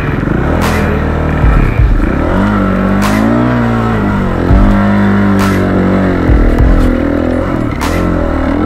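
Green Kawasaki dirt bike's engine revving up and down again and again as it climbs a rutted dirt trail, with several sharp knocks as the bike hits bumps.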